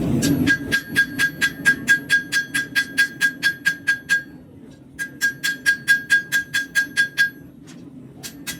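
Hand hammer striking a hot steel knife blade on an anvil, each blow ringing out, in a fast steady rhythm of about five blows a second. Two runs of blows with a brief pause between them, then a few lighter taps near the end, over a steady low hum.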